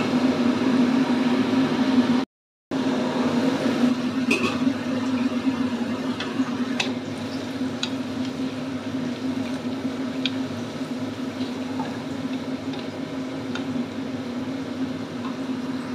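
Napa cabbage, carrot and green beans simmering and sizzling in a little water in a wok, stirred with a wooden spatula that taps and scrapes the pan now and then. A steady low hum runs underneath, broken by a short dropout about two seconds in.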